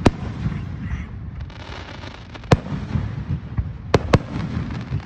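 Aerial firework shells bursting, with sharp bangs: one right at the start, one about two and a half seconds in, and two in quick succession near the end. A continuous crackling rumble runs between the bangs.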